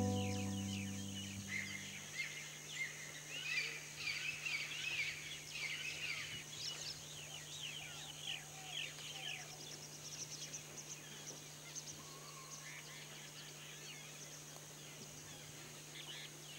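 Many small birds chirping: quick, high, falling chirps, busiest in the first ten seconds and thinning out afterwards, over a faint steady hum. A held music chord dies away at the start.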